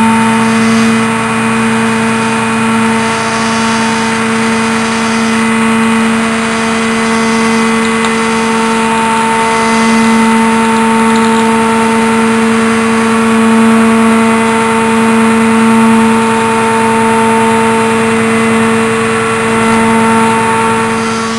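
DAF refuse truck's diesel engine running at steady raised revs to drive the body hydraulics, a loud, even drone with a whine on top, as the plate inside the body moves.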